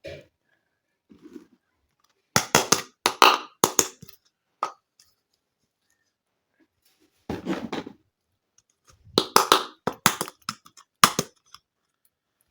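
Small plastic toy kitchen pieces and packaging being handled, in three clusters of sharp clicks and rustles. A duller knock comes about seven seconds in.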